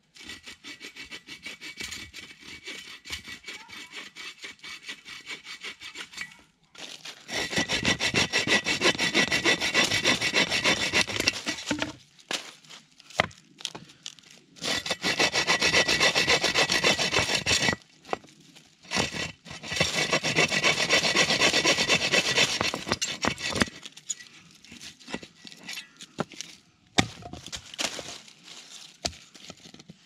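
Hand saw cutting dead branches in quick back-and-forth strokes. The sawing is fainter at first, then comes in three loud spells of a few seconds each, starting about 7, 15 and 19 seconds in. Near the end there are scattered knocks of wood pieces being handled.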